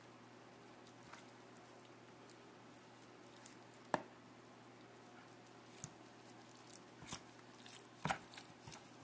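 A knife slicing raw chicken leg quarters in a bowl while gloved hands pull back the skin: soft wet squishing and a few sharp clicks, the loudest about four seconds in and a quick cluster near the end, over a faint steady hum.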